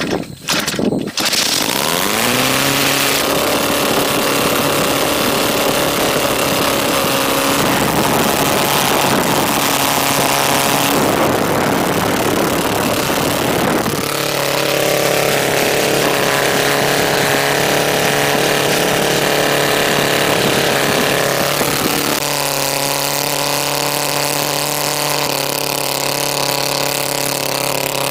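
DLE-222 two-stroke gasoline engine with its propeller, sputtering, catching about a second in and rising in speed, then running at a steady idle. Its pitch shifts slightly a few times.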